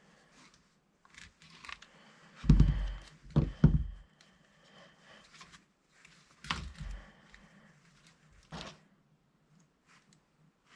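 Dull, heavy knocks from things being handled and set down: a cluster of three loud thunks a few seconds in, then two single knocks later, with faint rustling and handling noise between them.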